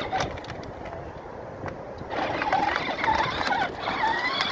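Power Wheels ride-on toy ATV driving on concrete: its plastic wheels rattle and scrape at first, and from about two seconds in its electric drive motors and gearbox whine, the pitch wavering up and down as the speed changes.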